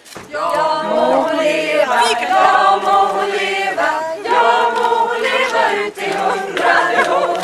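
A small group of people singing a song together, several voices holding notes in chorus.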